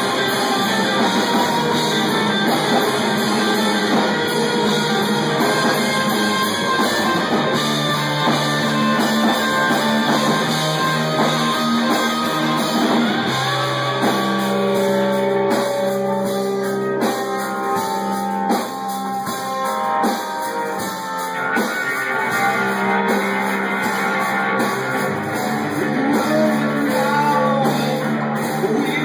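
Live rock band playing: electric guitars, bass guitar and drum kit. Around the middle the band drops to a sparser passage of held low notes for several seconds, then comes back in full.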